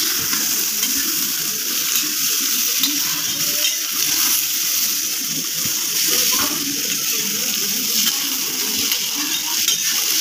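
Bitter gourd peels sizzling steadily as they fry in hot oil in a kadhai, stirred with a metal ladle that scrapes the pan now and then.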